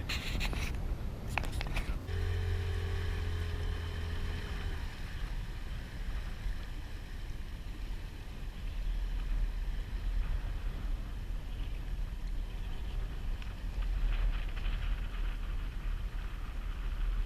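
Low steady rumble aboard a boat at sea, with wind on the microphone. A few sharp knocks come in the first couple of seconds, and a steady hum sounds from about two to five seconds in.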